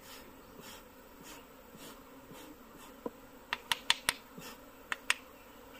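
Honeybees buzzing faintly around an opened wooden box hive while honeycomb is handled. In the second half come about half a dozen sharp clicks in quick succession.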